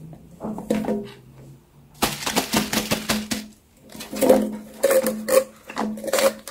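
Silicone pop-it fidget toy being pressed, its bubbles popping in quick clusters of sharp clicks and taps, with short pauses between runs.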